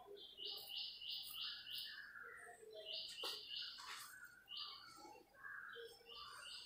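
A bird chirping in repeated quick runs of four or five high notes, about three a second, with softer lower calls in between. Faint scrapes of a safety razor on stubble are mixed in.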